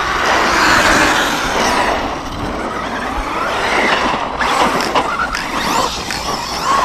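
Arrma Kraton 6S V6 RC truck's brushless electric motor driving hard, its whine rising and falling in pitch with the throttle over a steady rushing noise.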